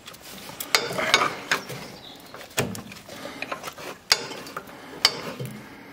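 A ring spanner undoing the bolt on a tractor's oil filter housing: irregular sharp metal clicks and knocks, about half a dozen, with scraping of steel on steel between them.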